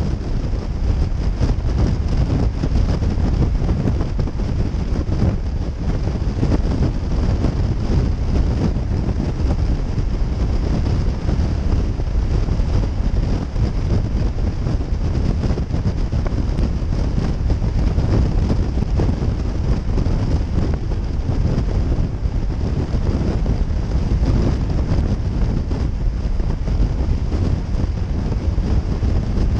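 Steady wind rush buffeting the microphone of a motorcycle cruising at highway speed, with the bike's engine and road noise under it.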